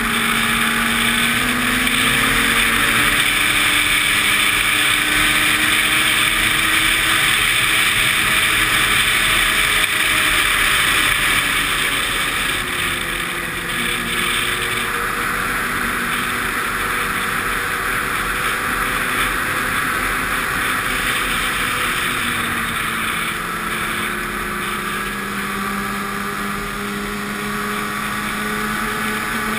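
Snowmobile engine running steadily while riding along a groomed snow trail, its pitch slowly rising and falling with the throttle, under a steady hiss of track and wind noise.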